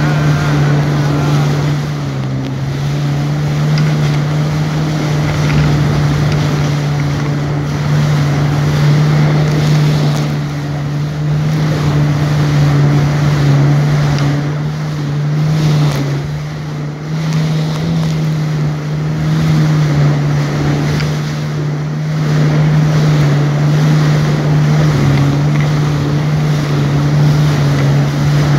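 Jet ski engine running steadily at cruising speed, a constant drone, with wind rushing over the microphone and water hissing off the hull.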